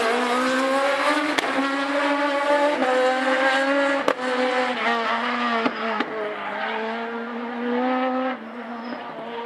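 A rally car's engine is held at high revs at full throttle, its pitch stepping through quick gear changes, with a few sharp cracks along the way. Near the end it turns quieter as the car moves off.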